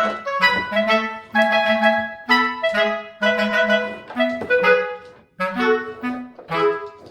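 Background music: a melody of short, separate held notes over a low accompaniment, which stops just at the end.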